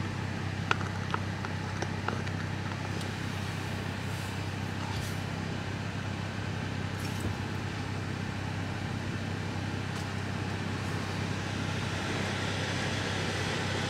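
Steady low hum and rush of an idling car, heard from inside, with a few light clicks in the first two seconds.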